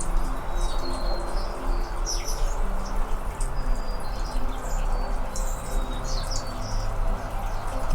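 Anna's hummingbirds giving many short, high chirps and squeaky notes, scattered and irregular, over a steady low background rumble.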